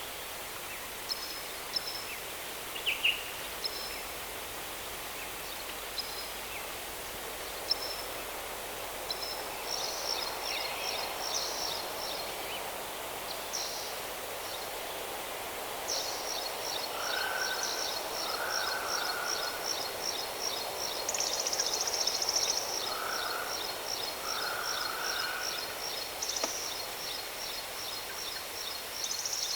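Waterfall running as a steady rush of water, with birds chirping over it. About halfway through, a fast, even, high-pitched trill starts and carries on, with a few lower chirps.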